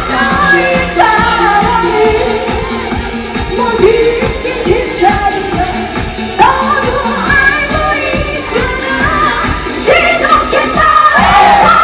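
Live band playing a Korean pop-rock song, with a female lead singer's voice over a steady drum beat.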